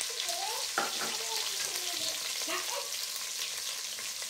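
Sliced onions sizzling in hot oil and ghee in an aluminium pressure cooker, a steady hiss just after they go in, with a light knock about a second in.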